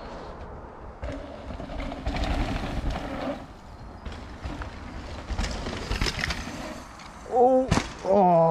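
Mountain-bike tyres rolling over a dirt jump trail, with wind noise and a few knocks, then a person whooping twice near the end, the second call falling in pitch.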